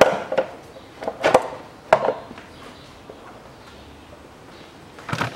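Hard plastic knocking and clattering as an engine's plastic air intake duct and its hose are worked loose and lifted off. There are several sharp knocks in the first two seconds, then a pause, then another knock near the end.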